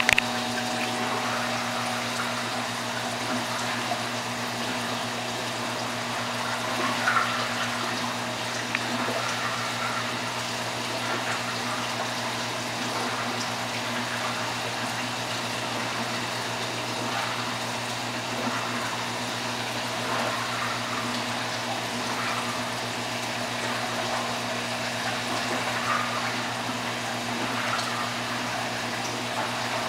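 Aquarium filter and pump running, a steady rush of moving water over a low electrical hum, with a few brief louder moments.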